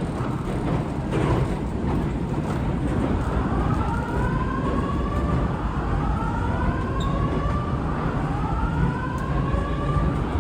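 A siren sounding in repeated rising sweeps, each about two seconds long. It comes in about three seconds in and grows louder, over a steady low background rumble.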